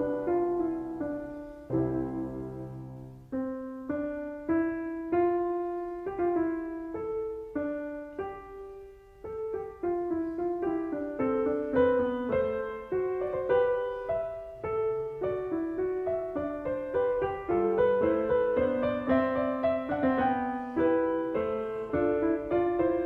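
Solo piano music: a melody of single struck notes, each fading away after it is played.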